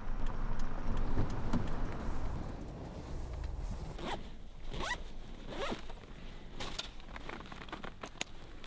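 A zipper pulled in several quick strokes, each rising in pitch, about halfway through, followed by a few light clicks. A low rumble fills the first couple of seconds.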